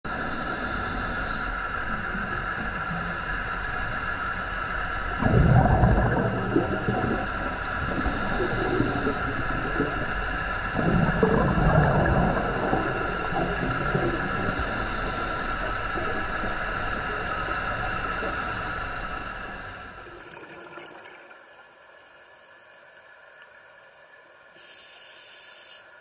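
Scuba diver breathing through a regulator underwater, over a steady hiss: a short high hiss on each inhale, then a low rumbling surge of exhaled bubbles, about every six seconds. The sound drops to a much quieter hiss about 20 seconds in.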